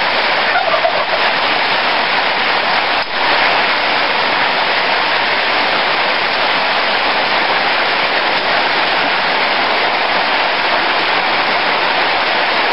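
Steady rain falling, an even, dense hiss without let-up.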